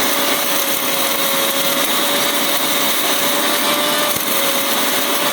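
Indian mixer grinder (mixie) running steadily at full speed, grinding roasted toor dal, chilli, salt and grated coconut with a little water into a thick chutney. A steady motor whine sits over the grinding noise.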